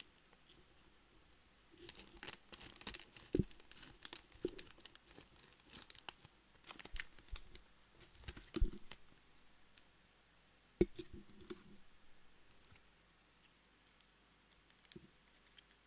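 Scissors cutting open a Teeccino bag, with crinkling and rustling of the bag as it is handled and a few sharp knocks.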